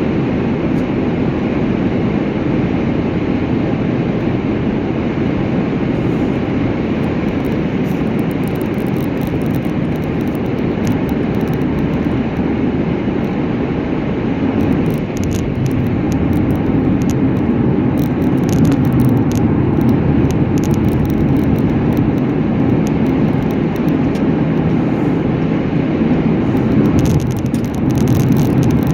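Steady road and engine noise of a car driving, with scattered faint crackles through the second half.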